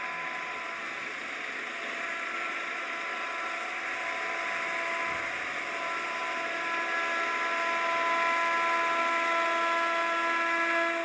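Electric locomotive approaching: a steady whine of several held tones over a rushing noise, growing gradually louder as it nears.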